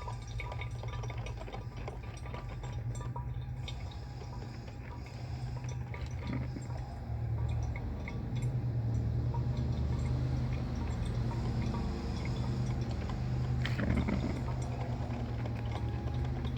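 Cuisinart Burr & Brew drip coffee maker brewing: liquid dripping through the machine over a steady low hum, getting a little louder about halfway through.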